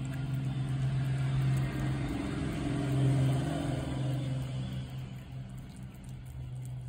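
An engine humming steadily at one low pitch, growing louder about three seconds in and then fading toward the end.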